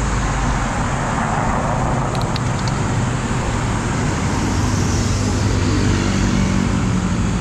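Road traffic: a motor vehicle's engine humming close by over a steady rushing noise, the engine growing a little louder in the second half.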